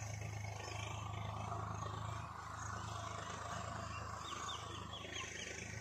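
A tractor engine running steadily, heard as a low drone. A quick run of short high chirps comes near the end.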